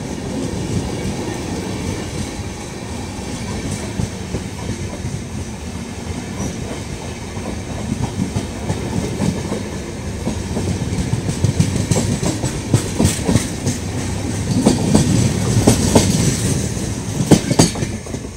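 Passenger train coaches rolling past close by, wheels running with a steady rumble and a clickety-clack over the rail joints; the clacks grow louder and sharper over the last several seconds.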